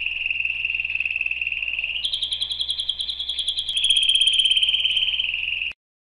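Domestic canary singing a continuous run of rapid trills. It shifts to a higher, more sharply pulsed trill about two seconds in, drops back lower near four seconds, and cuts off suddenly shortly before the end.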